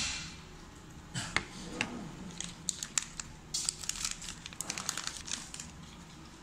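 Crinkling and clicking of a small plastic camera-lens protector film and its backing being handled, with a couple of sharp knocks about a second in.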